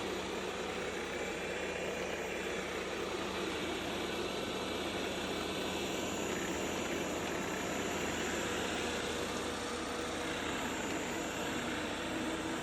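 Roborock robot vacuum cleaner running, giving a steady whirring hum with a faint held tone.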